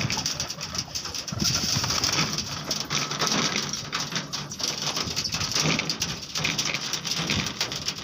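Domestic pigeons feeding on grain on a hard drum top: many quick pecking taps, with cooing underneath.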